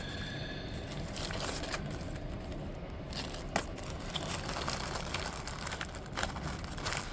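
Handling noise with a few small sharp clicks, the clearest about three and a half seconds in, from working on the parts of a push-on air hose connector by hand.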